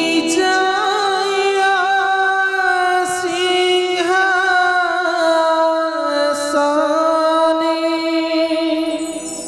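Singing in long, held, wavering notes that glide between pitches, over a steady sustained drone accompaniment.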